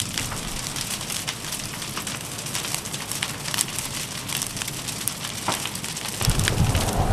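A burning structure fire crackling, with irregular sharp pops over a steady hiss. About six seconds in, a low rumble of wind on the microphone comes in.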